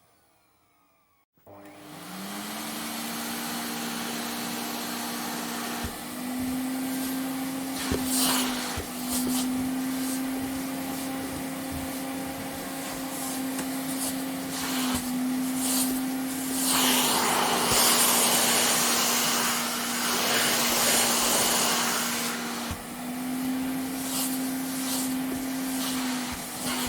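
Vacuum cleaner switched on after a moment of near silence, its motor spinning up to a steady whine, then running with a rush of air that swells and eases; the whine steps slightly up and down in pitch several times.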